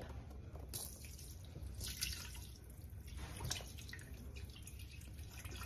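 Beef broth poured from a carton into the stainless steel inner pot of an Instant Pot, faint splashing and dripping in a few short pours.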